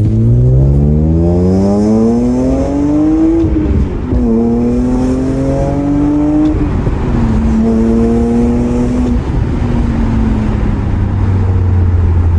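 BMW E46 M3 straight-six accelerating hard through the gears. The engine note climbs, drops at an upshift about a third of the way in, climbs again and shifts again about halfway, holds briefly, then falls away to a steady low drone near the end.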